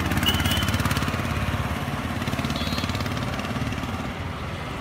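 Motorcycle engine running as it passes along the road below, loudest at first and fading away as it moves off.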